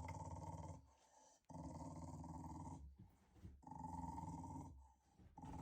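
A dog growling in four long, rumbling growls of about a second each, with short pauses between them.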